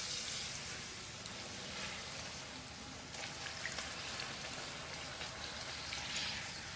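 Cooking oil heating in a pan on a high flame for deep-frying poori: a steady hiss with scattered faint crackles.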